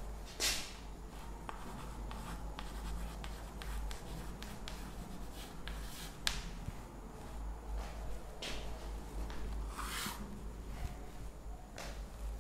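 Chalk writing on a blackboard: short scratchy strokes and light taps, with a few longer strokes standing out.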